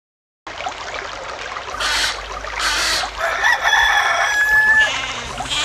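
Rooster crowing: one long held call starting a little over three seconds in, after two short rushing bursts of noise. Music begins at the very end.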